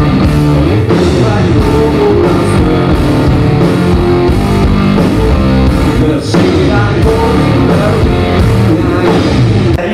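Live rock band of electric guitar and drum kit playing loudly, with a brief drop in level about six seconds in.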